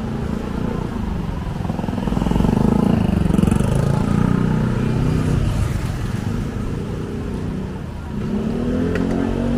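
Motor scooters riding past on the street, their engines swelling as they come close and fading away. The loudest pass is about three seconds in, and another comes near the end.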